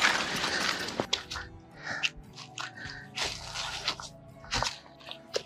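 Footsteps crunching through dry fallen leaves on a forest trail: a loud rustling crunch in the first second that fades, then scattered separate crunches. Soft background music plays underneath.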